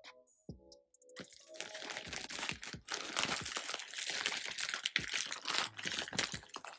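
Packaging being crinkled and pulled open by hand: dense crackling and rustling that starts about a second in, after a second of faint background music.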